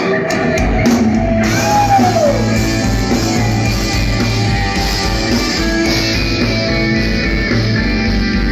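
Progressive metal band playing live: electric guitars, bass and drum kit. The full band with its low end comes in about half a second in, cymbals join about a second later, and a single note slides down in pitch near two seconds in.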